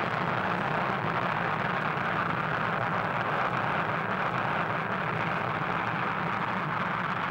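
Rocket engines at liftoff: a steady, even rushing noise with no breaks.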